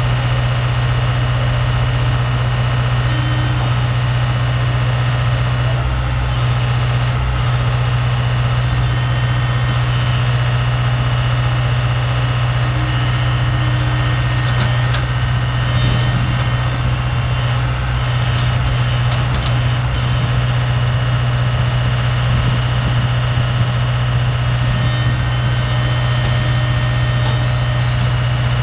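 Diesel engine of a tracked JCB excavator running steadily as its arm and bucket dig in thick mud: a continuous deep drone that holds the same level throughout.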